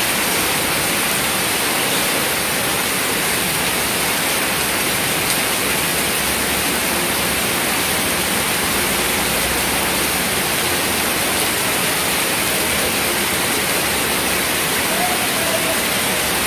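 Heavy tropical downpour falling steadily on a paved road and forecourt: a dense, even hiss that holds at one level throughout.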